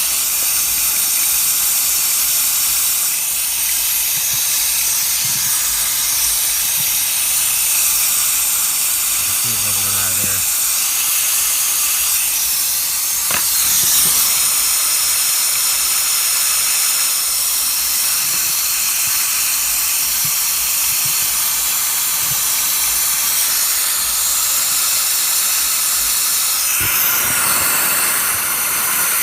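Compressed air hissing steadily out of a diesel engine's injector bore during a cylinder air test with the valve cover off. The leak points to a failing injector cup (nipple cup) O-ring or top injector O-ring.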